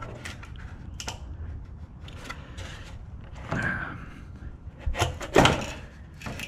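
Hands prying and twisting at a section of the bumper's plastic impact-absorber material to pop it off its mounting: scattered knocks, rubs and creaks, the loudest a pair of knocks about five seconds in.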